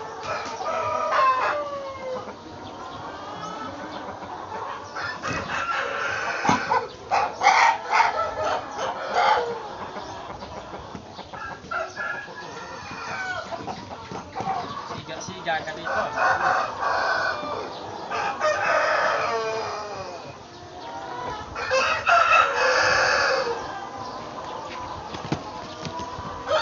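A flock of white domestic chickens calling: roosters crowing again and again over steady clucking, several birds calling over one another.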